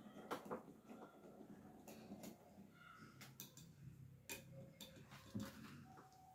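Wire hand whisk working thick cake batter in a glass bowl: faint, irregular clicks and taps of the wires against the glass, with a soft stirring sound.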